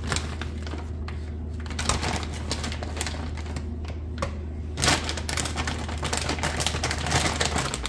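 Frozen pineapple chunks being taken from a crinkling plastic bag and dropped into a NutriBullet's plastic cup of frozen fruit, a dense run of small clicks, knocks and rustles. A low steady hum underneath stops shortly before the end.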